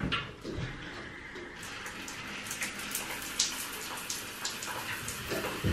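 Shower running after being turned on: water spray hissing and pattering in a tiled glass shower stall, building up about a second and a half in.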